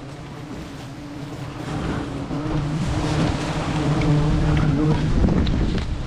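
Disturbed, aggressive honey bees buzzing close around the microphone in a steady droning hum that grows louder after a couple of seconds, with wind rumbling on the mic.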